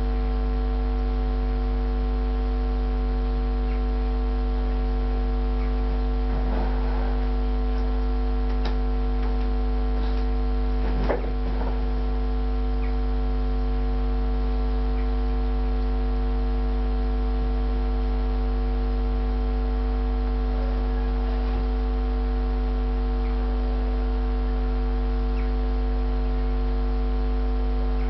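Steady electrical mains hum, a low 50 Hz drone with a row of higher steady overtones, unchanging throughout. A single short click about eleven seconds in.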